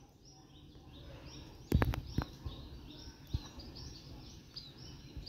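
Small birds chirping over faint background noise, with a couple of sharp knocks about two seconds in.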